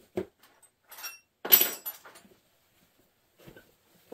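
A few short handling knocks and a brief metallic jangle of small tools or hardware being handled. The jangle, the loudest sound here, comes about a second and a half in.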